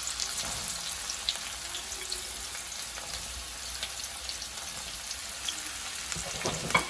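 Finely chopped red onions sizzling in hot sunflower oil: a steady frying hiss with scattered small crackles.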